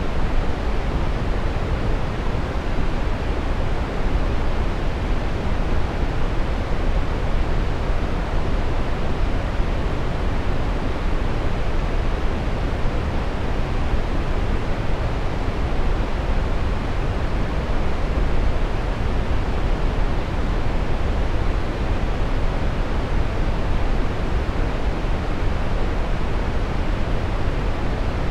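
Steady, unchanging brown noise: a continuous hiss weighted toward the low end, deep and rumbling with little treble.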